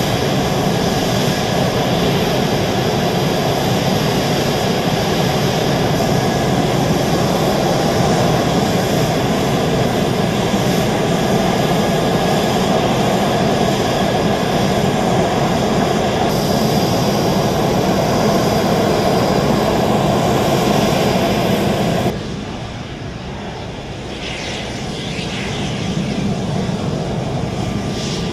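F-16 Fighting Falcon jet engines running at taxi power as the fighters roll past, a loud steady rushing noise with a faint high whine. About three quarters of the way through the sound drops suddenly to a lower level, then builds again toward the end as another F-16 comes close.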